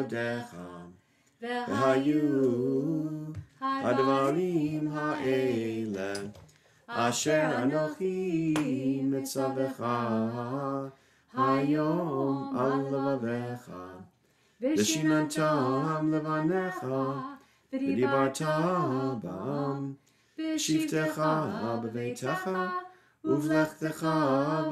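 A woman and a man singing a Jewish prayer unaccompanied, in phrases of a few seconds with short pauses between them.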